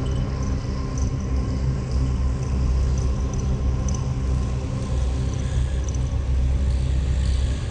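Science-fiction UFO sound effect: a steady deep rumbling drone with a low hum, overlaid with faint flickering high-pitched tones.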